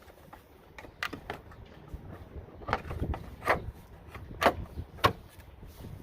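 Tail light assembly knocking and clicking against the car body as it is lined up with its mounting holes: about five sharp, irregular knocks, the loudest near the middle.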